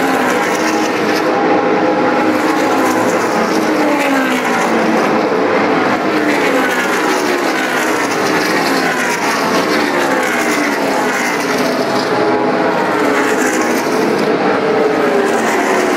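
NASCAR Sprint Cup stock cars' V8 engines running at speed around an oval during practice, several cars at once. The engine notes overlap, each rising and falling in pitch as a car passes.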